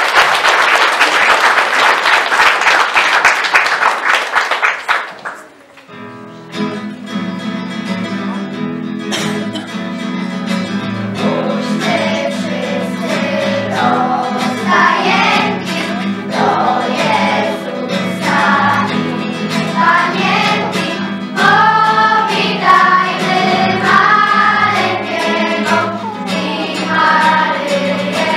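Audience applauding, dying away about five seconds in. An instrumental accompaniment then starts, and a few seconds later a girls' choir begins singing a Christmas song over it.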